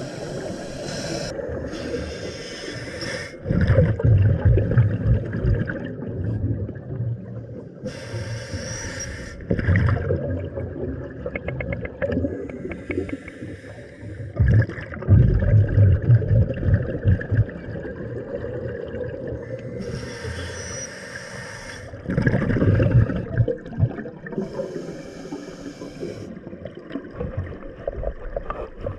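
Scuba diver breathing through a regulator underwater, picked up by the camera: several hissing inhalations of about a second each alternate with low, rumbling bursts of exhaled bubbles.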